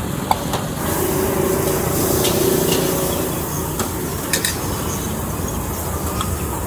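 Ceramic bowls and metal utensils clinking and knocking as they are handled, a scattering of sharp clicks, over a steady background hiss that swells about a second in and eases off a couple of seconds later.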